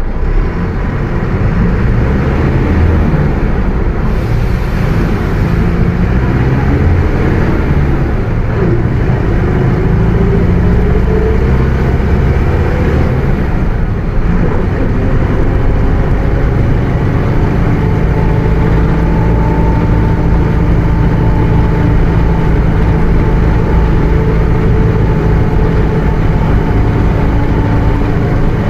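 Mercedes-Benz OF 1721 BlueTec 5 bus driving, its diesel engine and drivetrain running loudly without a break. A whine rises in pitch through the middle as it gathers speed, then settles into a steady whining drone in the second half: the growling differential.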